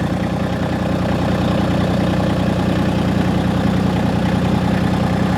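Massey Ferguson GC1725 sub-compact tractor's three-cylinder diesel engine idling steadily.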